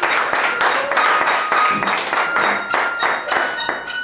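Audience applauding with dense, irregular clapping. Musical notes of the song's backing begin to come in over the clapping in the second half.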